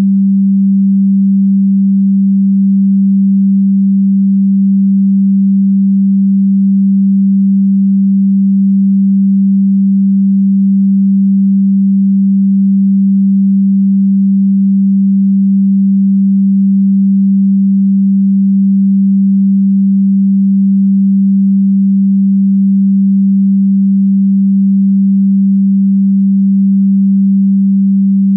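A single synthesized sine tone held at one low pitch, loud, steady and unchanging throughout.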